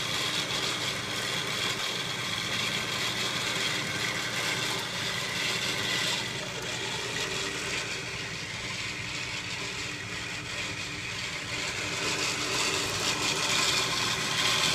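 Electric winch motor and gear train running steadily, winding new cable onto the drum under tension: the first preloading spool-on of a newly installed Champion winch.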